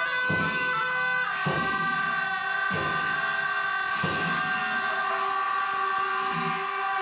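Played field recording of a ritual soundscape: a strike about every second and a quarter over a steady, ringing metallic tone.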